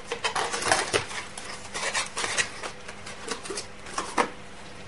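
Cardboard CPU retail box being handled and pulled open: an irregular run of rustles, scrapes and light clicks, with a sharper click about four seconds in.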